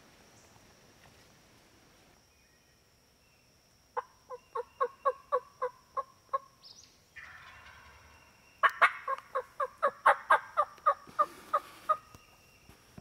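Wild turkey calling: a run of about ten quick, evenly spaced notes about four seconds in, then a longer, louder run near the end.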